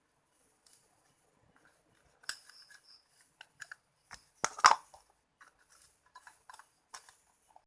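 Small sharp clicks and snips of hand work on small parts, starting about two seconds in, scattered and irregular, with a louder cluster of clicks about four and a half seconds in.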